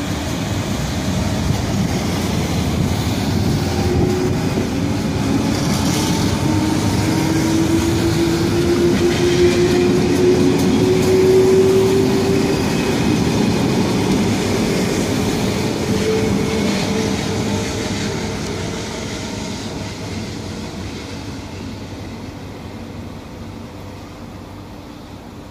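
Two coupled SNCF Z2 electric multiple units pulling away and accelerating: a dense rumble of wheels on the track with a traction-motor whine that rises slowly in pitch. It grows louder as the train passes, then fades steadily as it draws away.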